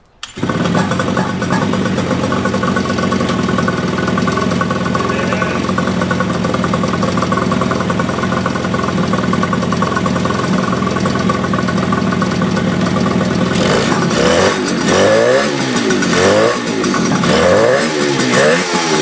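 Suzuki GT185 two-stroke twin engine running steadily, then revved up and down again and again, about once a second, from about two-thirds of the way in.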